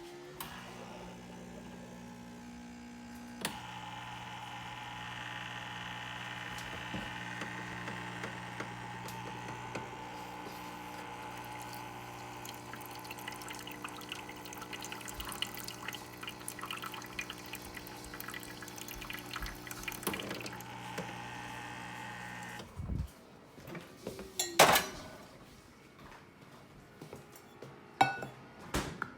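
Automatic espresso machine running a brew: a steady pump hum with liquid pouring and dripping. The hum grows fuller a few seconds in and cuts off after about twenty seconds, followed by a few clicks and knocks.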